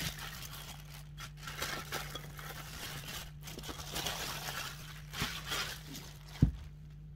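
Thin plastic bag crinkling as it is pulled off a bowl of risen dough, then one sharp knock about six seconds in as the bowl is set down.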